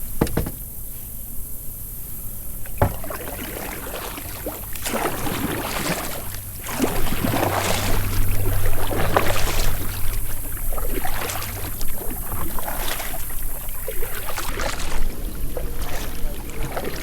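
Kayak paddle strokes: the blade swishing and splashing through the water, one stroke about every second, growing louder as the paddling gets going, after a couple of sharp knocks near the start.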